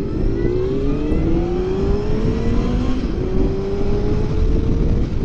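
Honda CBR900RR Fireblade's inline-four engine accelerating hard. Its pitch climbs, drops back and climbs again twice as the rider shifts up through the gears, over a steady low rush of wind.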